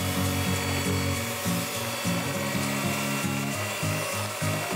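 Electric hand mixer on a stand running steadily, its beaters whirring through eggs, sugar and flour in the bowl, with background music playing over it.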